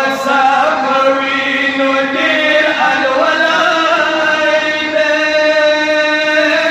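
Two male voices chanting a devotional recitation in unison into microphones, in long drawn-out held notes that move slowly up and down in pitch.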